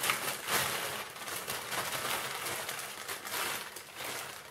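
Clear plastic bag rustling and crinkling as a tripod is slid out of it, with irregular louder crackles.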